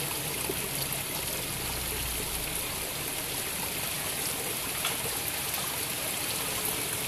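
Shallow river water running and trickling over rocks, a steady rush.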